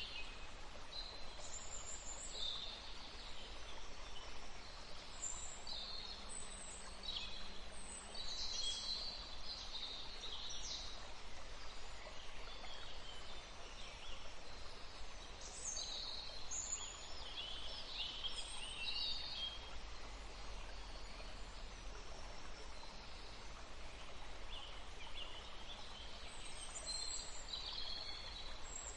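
Forest songbirds chirping and calling in short, scattered phrases over a steady low hiss of gentle breeze, with a busier spell of calls in the middle.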